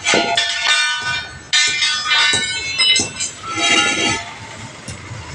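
A steel wheel rim and its split lock ring clanging and scraping as they are handled on concrete, each knock followed by a metallic ringing. There are three main clangs: at the start, about a second and a half in, and around three and a half seconds in.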